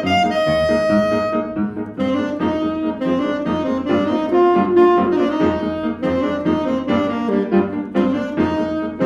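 Alto saxophone playing a jazz tune: a long held note, a brief break about two seconds in, then a run of quicker notes.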